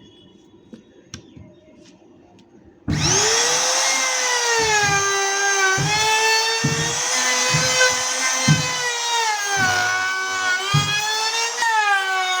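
A small trim router starts up about three seconds in and runs with a high whine. Its pitch sags and recovers as the bit rounds over the edge of a wooden bass speaker cabinet, with rough low bursts each time it bites into the wood.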